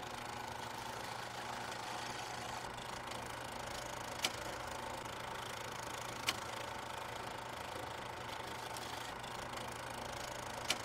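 Film projector running: a steady mechanical whirr and hum with a few single sharp clicks a couple of seconds apart.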